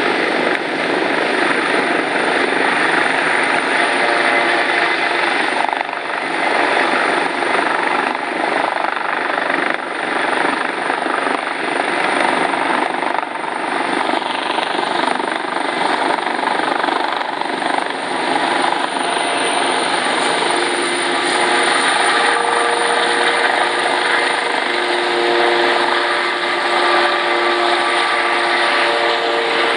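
Kawasaki OH-1 observation helicopter lifting off and flying low: steady, loud twin-turbine and rotor noise with a thin high whine throughout, a few steady tones joining past the halfway point.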